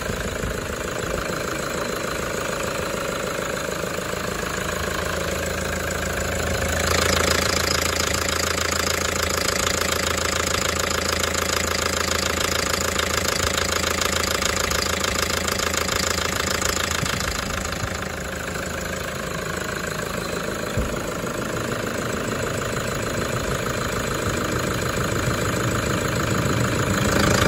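Toyota 1KD-FTV four-cylinder common-rail turbodiesel idling, breaking into a loud metallic rattle about seven seconds in that stops again about eleven seconds later. The rattle cycles roughly ten seconds on and ten seconds off, only at idle, which the owner suspects is a fuel-pressure problem.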